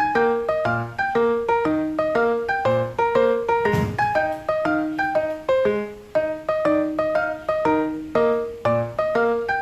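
Background piano music: a bright, quick repeating figure of struck notes, with a single brief swell of noise about four seconds in.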